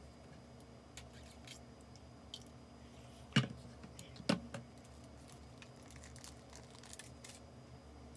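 Two short knocks about a second apart as a ketchup bottle is handled and set down on a table, with faint small handling clicks around them.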